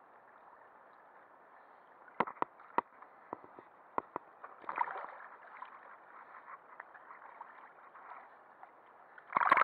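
Water sloshing and gurgling around a snorkeler's camera at the surface, with scattered sharp knocks and clicks, and a louder splash near the end as the camera goes under.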